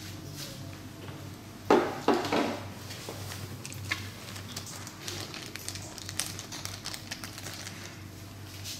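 Parts being handled while a handle holder is fitted to a laser hair removal machine's casing: two short squeaky scrapes about two seconds in, then a scatter of small clicks, taps and light rattling.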